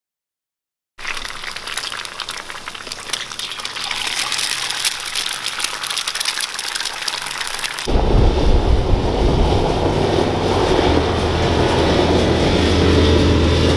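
Eggs sizzling in oil on a flat-top griddle, a dense crackling hiss. About eight seconds in it cuts to a side-by-side UTV's engine running steadily as it drives off along a dirt road, a loud, low-pitched sound.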